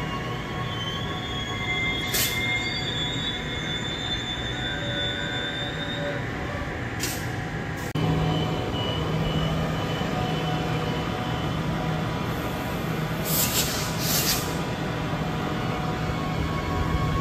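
Electric suburban train on the Joondalup line, its steel wheels squealing on the rails with high wavering tones, broken by several short hisses. Partway through, the sound changes abruptly to a steadier low electric hum with further brief hisses.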